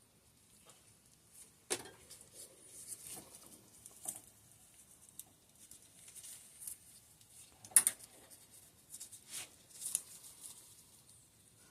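Scattered light clicks, taps and short scratchy scrapes of small rear-shock parts and hand tools being handled on a workbench during a teardown, with a sharp click about two seconds in and the sharpest about eight seconds in.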